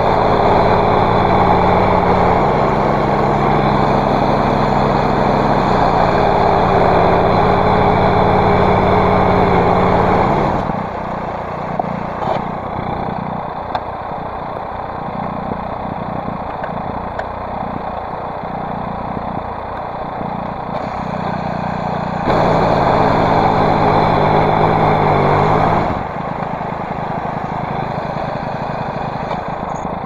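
Small gasoline engine on a home-built bandsaw sawmill running at high throttle, dropping to idle about ten seconds in. It revs up again for a few seconds about two-thirds of the way through, then settles back to idle.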